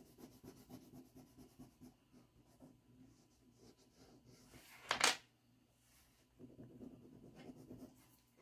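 Green crayon being rubbed quickly back and forth on drawing paper, a faint scratchy scribbling that stops after about two seconds and starts again a little after six. One short, louder knock about five seconds in.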